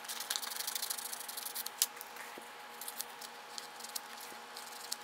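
Small scissors snipping out paper decal prints: a quick run of fine, crisp snips and clicks, densest over the first couple of seconds, with one sharper snip just before two seconds in and sparser cuts after.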